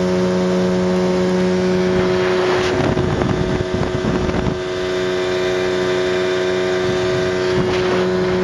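Mariner 25 hp outboard motor running at a steady pitch, driving an inflatable boat. A couple of seconds in, a rushing noise covers the engine for about two seconds, and again briefly near the end.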